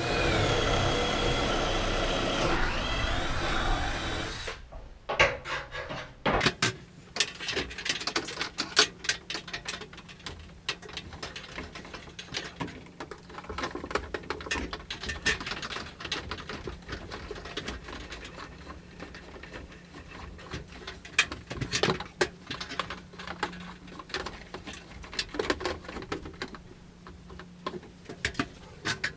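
A power drill runs with a steady whine for about four seconds, then stops. Irregular clicks, taps and rubbing from hand work follow.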